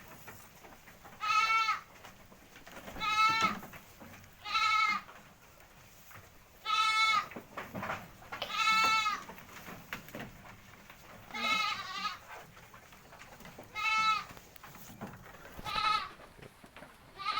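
A goat bleating again and again: about eight calls, each under a second long, a second or two apart.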